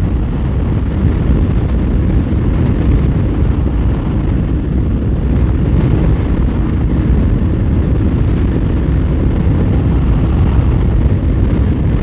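Steady wind noise buffeting the rider's camera microphone at around 95 km/h, with the KTM 1290 Super Adventure R's V-twin engine and aftermarket Akrapovic slip-on exhaust running underneath at cruise.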